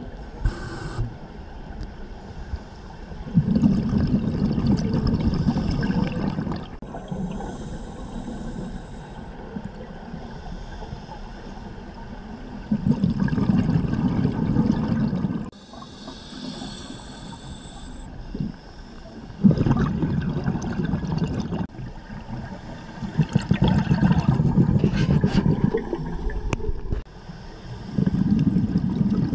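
Scuba diver breathing through a regulator underwater: exhaled bubbles rumble out in five long bursts, with a quieter hiss of inhaled air in some of the gaps between.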